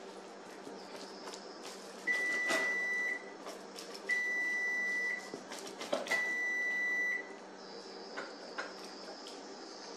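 Three long, even electronic beeps from a kitchen appliance, each about a second long and two seconds apart. Underneath, a pizza cutter wheel crackles and clicks as it rolls through a baked pizza crust on a wooden board.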